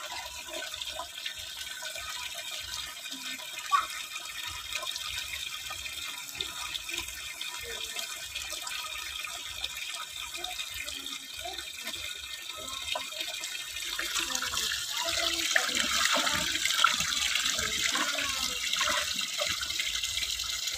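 Thin stream of water running from a small PVC pipe outlet and splashing over hands being rinsed. About two-thirds of the way through it grows louder: a stream pouring into a bucket already full of water.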